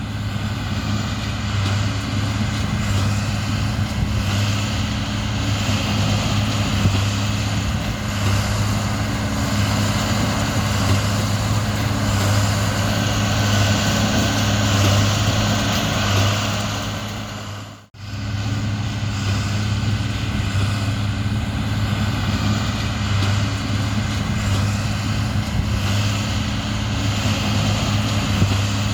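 Large diesel engine of heavy harvest machinery running steadily under load. It fades out briefly about two-thirds of the way in, then resumes at the same steady level.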